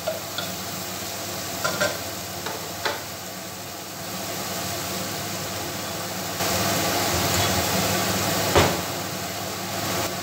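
Mixed vegetables sautéing in hot oil in a pan, sizzling steadily, with a few utensil clinks in the first few seconds. The sizzle grows louder about six seconds in, and a single sharp knock comes near the end.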